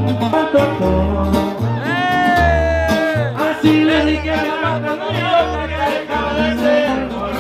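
Mexican regional band playing live: a tuba pumps a pulsing bass line under busy plucked strings, and a singer holds one long note about two seconds in.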